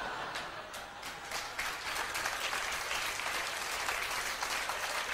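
Live theatre audience applauding a comedy punchline: many hands clapping steadily, a dense, even sound with no break.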